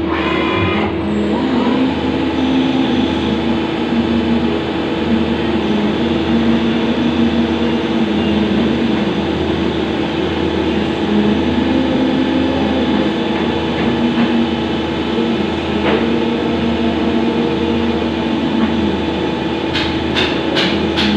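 CNC turning lathe running: its spindle and drives give a steady hum with a constant tone while a turret-held tool works the spinning workpiece. A quick run of sharp clicks comes near the end.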